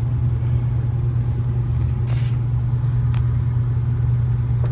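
A steady low hum, with two faint brief ticks about two and three seconds in.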